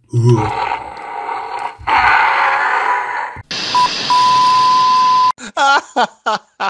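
TV test-card signal: hissing static, then a short blip and a steady beep tone over the static, which cuts off abruptly a little over five seconds in. A voice follows near the end.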